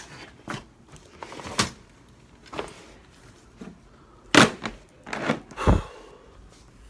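A series of separate knocks and clunks of things being handled, the loudest a little past the middle and a deep thump about a second after it.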